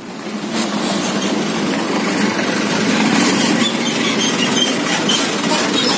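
Motor scooter engine running as it rides past, over a steady rumble of engine and road noise that swells slightly midway.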